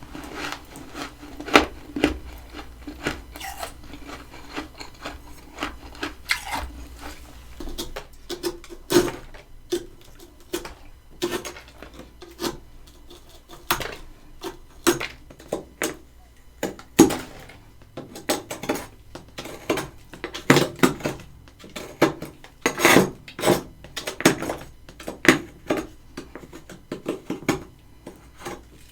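Freezer frost crunching and scraping in many irregular sharp strokes, with clinks like a metal utensil.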